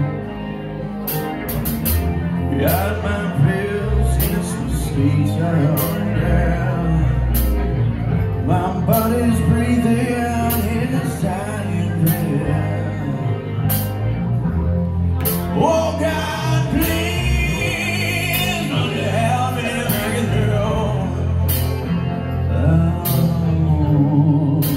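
Live rock band playing: male lead vocals through a microphone over bass guitar and a drum kit, with cymbal hits cutting through at a steady pace.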